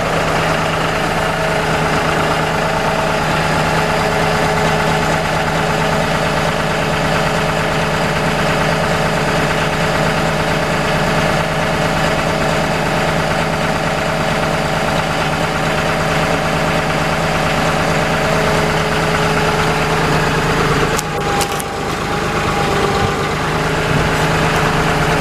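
John Deere tractor engine running steadily, with a brief dip and change in the sound about 21 seconds in.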